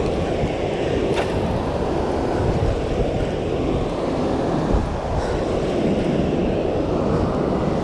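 Steady low rush of water pouring through a dam's open spillway gates, with wind buffeting the microphone.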